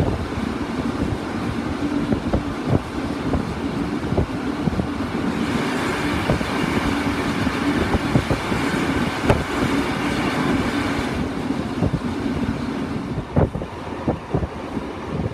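Railway passenger carriage running along the track: a steady rumble with wheels clicking over rail joints. From about five and a half seconds in until about eleven seconds, a train passing close on the adjacent track adds a rushing noise.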